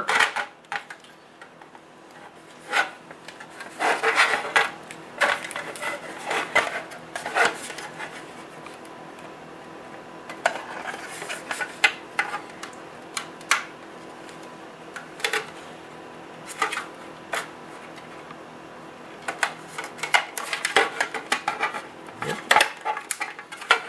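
Hard plastic scale-model parts being handled and test-fitted: an LED light bar and its plastic base pressed onto a plastic truck-cab roof, with irregular small clicks, taps and rubbing.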